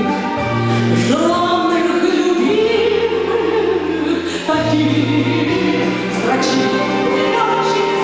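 A woman singing a Soviet wartime song into a handheld microphone, amplified through a PA, over an instrumental accompaniment with a bass line. She holds long notes with vibrato, one rising to a long held note a couple of seconds in.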